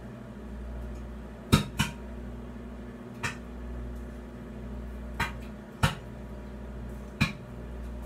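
Butter heating in a running microwave oven popping: six sharp, irregular pops over the oven's steady low hum.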